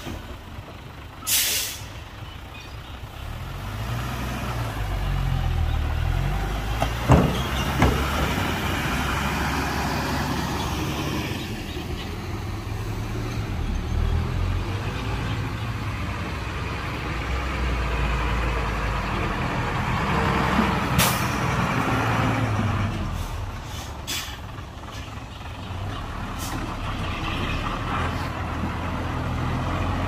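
Heavy diesel engines of a dump truck and bulldozer running, rising and falling in revs, with several short air-brake hisses: one about a second and a half in, and others past the twenty-second mark.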